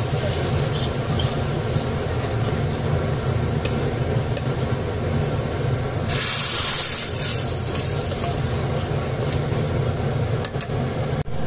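Steel ladle stirring thick saag in a pressure cooker as a hot ghee tadka sizzles into it, with small scrapes against the pot, over a steady low hum. A louder sizzling hiss lasts about a second, about six seconds in.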